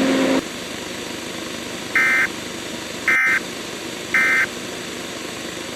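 Three short bursts of Emergency Alert System SAME data tones, a warbling digital screech about a second apart: the end-of-message code that closes an EAS alert. A low steady hum cuts off just after the start, leaving a faint hiss between the bursts.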